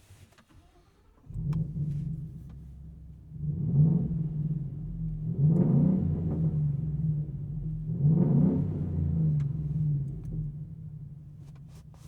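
Ford F-150 5.0L V8 with a Flowmaster Outlaw cat-back exhaust, heard from inside the cab: the engine fires up about a second in, settles to a deep rumbling idle, and is blipped three times before dropping back to idle.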